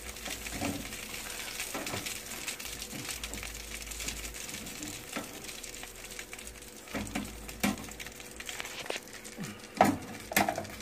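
Freshly air-fried chicken wings sizzling in the air fryer basket while they are flipped over, with scattered metal clicks and taps against the basket, the loudest of them near the end. A faint steady hum runs underneath.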